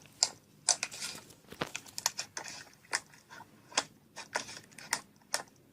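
Slime being squeezed and worked by hand in a slime video playing on a screen: irregular sticky crackles, pops and clicks, several a second.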